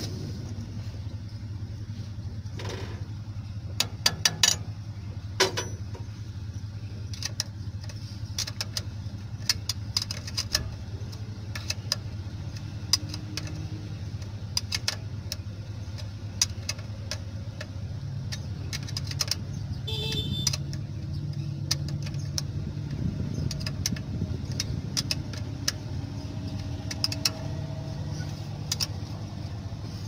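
Scattered metallic clinks and taps of tools and fittings as hoses are fitted to an air-conditioning compressor, with a few louder knocks about four to six seconds in. A steady low engine hum runs underneath.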